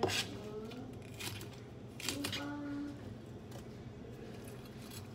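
Kitchen knife knocking on a plastic cutting board while shredding cabbage: a few separate sharp strikes, the loudest at the start and about two seconds in.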